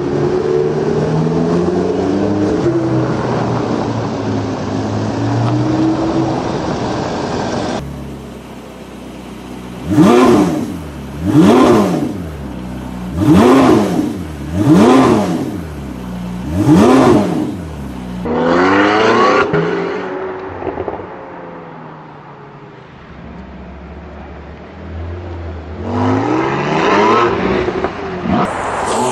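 Porsche 918 Spyder's 4.6-litre V8 running with a wavering note, then revved five times in quick succession, sharp blips about a second and a half apart. After a further rev and a quieter lull, it rises in pitch under acceleration near the end.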